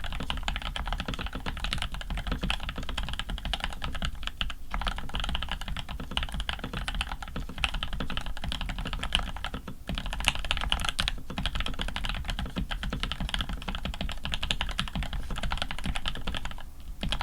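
Fast, continuous typing on a Rama U80 custom mechanical keyboard with lubed Creamsicle linear switches on an aluminium plate and PBT keycaps, a dense stream of keystrokes with brief pauses about four seconds in, near ten seconds in and near the end.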